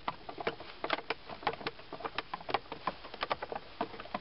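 Hand screwdriver driving a long screw into a plastic steering column cover: a run of sharp, irregular clicks, several a second.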